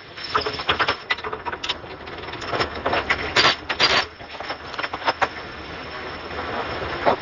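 Irregular metallic clinks and knocks of tools and parts being handled during a brake job, loudest and thickest about three to four seconds in.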